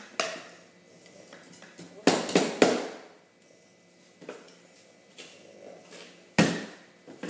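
Sharp knocks and thumps of toys and objects struck and set down on a tabletop: a cluster of loud knocks about two seconds in and another single loud knock near the end.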